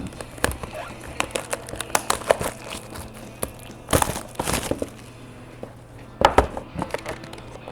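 A trading-card box's plastic wrapping and cardboard being opened by hand: crinkling and tearing with many small clicks, with louder rustles about four seconds in and again after six seconds.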